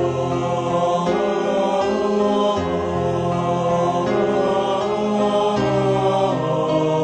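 Background music: a slow Islamic devotional (sholawat) piece with held chords and no words sung in this stretch.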